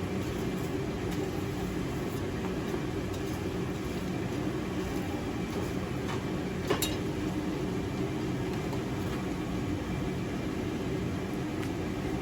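Coal forge fire running with a steady rumble as a borax-fluxed steel bar heats toward a forge-welding heat. A single sharp click about seven seconds in.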